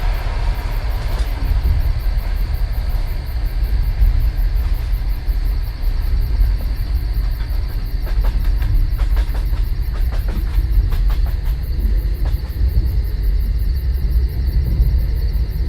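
DR1A diesel-hydraulic multiple unit running, a steady heavy low rumble heard on board, with a run of faint clicks around the middle.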